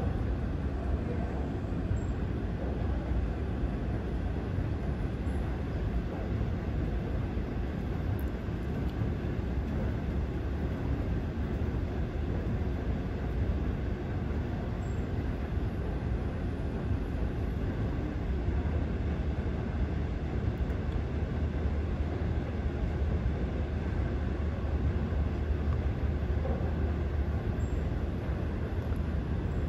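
Steady deep rumble of a moving vehicle, with no distinct events.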